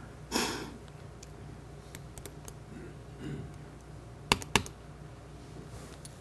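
Laptop clicking: a few light clicks about two seconds in, then a louder quick group of three just past four seconds. A brief puff of noise comes right at the start.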